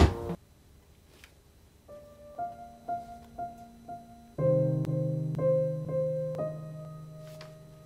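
Soundtrack piano music. After a brief sharp thump and a short silence, single notes come about every half second, then fuller chords with a low bass join about halfway through and slowly fade.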